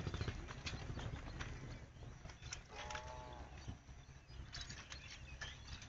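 A single short, wavering animal call about three seconds in, lasting about half a second, over faint outdoor background with scattered clicks; a low rumble fades out over the first two seconds.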